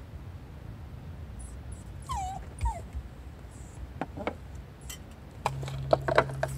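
Toy poodle whimpering while waiting for its food: two short, falling whines about two seconds in. Near the end, light clinks from the dog eating out of a stainless steel bowl, over a steady low hum.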